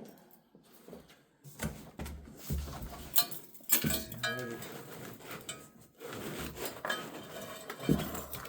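Irregular metallic clinks and knocks, a jumble of handling clatter with some short ringing tones, as the heavy key-cutting machine and its parts are shifted about.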